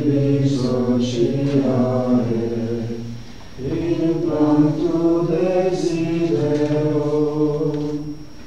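Congregation singing a slow hymn verse together, in two long sung phrases with a brief breath between them about three seconds in.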